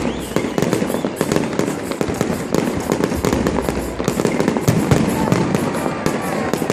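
Fireworks going off in a dense, continuous barrage of rapid bangs and crackles, many per second.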